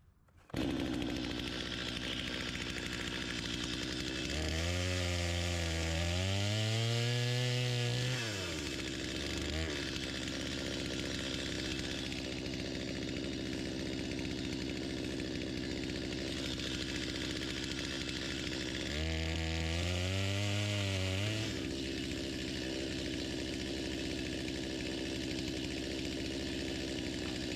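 Gas chainsaw idling steadily, revved up twice for a few seconds each, about five seconds in and again near twenty seconds, as it cuts through a small fallen log.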